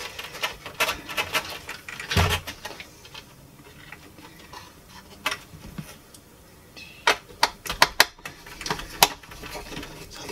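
Handling noise from the opened plastic chassis of a Technics SL-J110R turntable: light clicks and knocks as its circuit boards and wiring are moved about, with a quick run of sharper clicks in the last few seconds.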